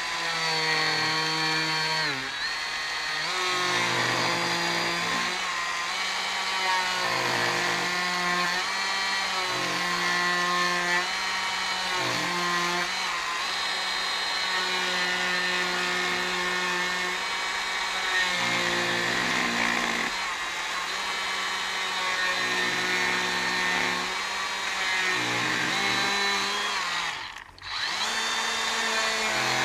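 Cordless DeWalt 18V die grinder with a spherical bit, carving into a wood offcut. Its motor whine shifts up and down in pitch as the bit cuts. It stops briefly near the end and then runs again.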